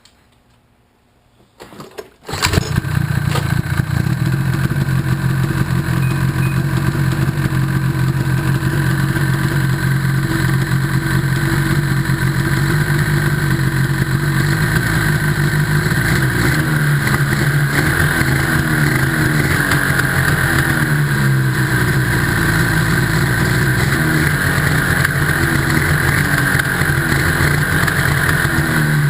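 Ski-Doo 800R snowmobile's two-stroke twin engine starting about two seconds in, then running steadily. About halfway through, an uneven, wavering note comes into the running, which the owner wonders may be a misfire.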